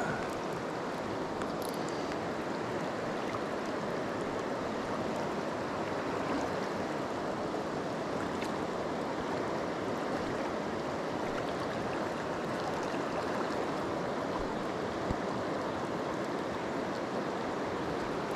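River current flowing steadily over a choppy stretch of water: a continuous, even rush of water.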